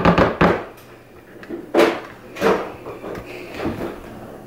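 A spatula and plastic dishes knocking and clattering on a kitchen counter as avocado puree is served out. A quick cluster of knocks comes first, then a few single knocks.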